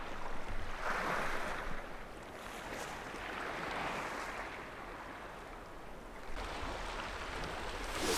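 Sea waves washing against the shore, a soft hiss that swells and fades every second or two.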